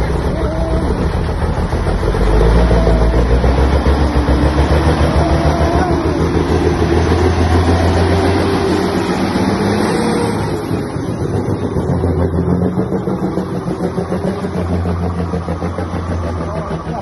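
Diesel engine of a semi truck pulling a shipping-container trailer, a loud low rumble that swells about two seconds in, eases off around ten seconds, then picks up again as the truck drives past.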